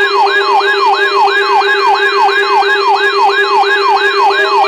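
Loud electronic alarm siren: a falling sweep repeated a little over three times a second, over a steady low tone.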